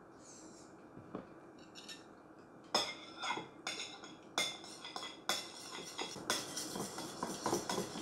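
A metal spoon stirring sauce in a ceramic bowl, clinking against its side. It starts about three seconds in with separate clinks roughly a second apart, which come faster toward the end.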